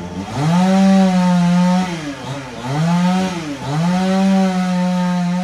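Chainsaw revving up to full speed three times, holding each burst a second or more and dropping back briefly in between.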